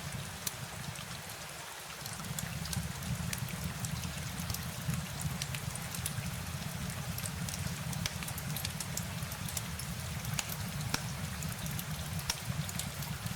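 Steady rain: an even low rush with many scattered sharp ticks of drops striking a surface.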